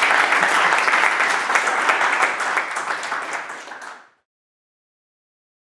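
Audience applauding, a dense patter of many hands clapping that fades and then cuts to silence about four seconds in.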